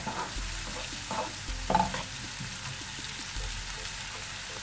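Chopped onion and ginger-garlic paste sizzling in butter in a nonstick frying pan, stirred with a wooden spatula that scrapes and knocks against the pan a few times in the first two seconds. The ginger-garlic paste has begun to spatter in the hot butter.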